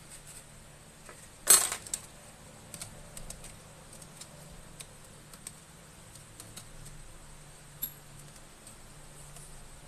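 Small parts being handled inside an open MacBook Pro while its cooling fan is fitted back in: a sharp metallic clatter about a second and a half in, then scattered light clicks and taps.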